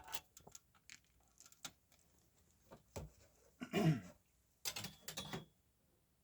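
Handling noises as a vintage slide projector is unwrapped: scattered light clicks and rustles of wrapping, with two louder rubbing scrapes about four and five seconds in.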